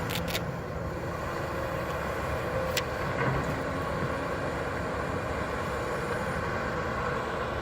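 Heavy construction machinery running steadily, with a few short sharp clicks near the start and about three seconds in.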